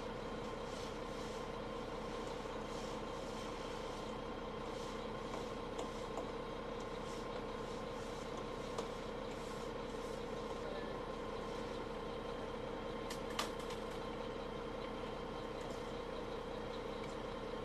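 Concrete mixer truck engine running steadily as concrete is discharged down its chute. A sharp click or knock is heard late on.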